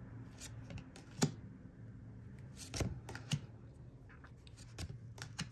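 Glossy oracle cards being flipped through by hand, one card moved to the back of the deck at a time: a scattering of light card clicks and taps at irregular intervals.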